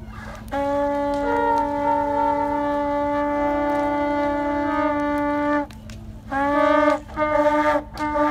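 Ceremonial horn blasts in a blowing sequence: one long, steady blast of about five seconds, then three shorter blasts.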